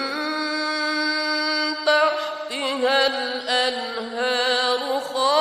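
Melodic Quran recitation (tajweed): a single reciter's voice holds one long drawn-out note for about two seconds, then moves into wavering, ornamented turns of pitch.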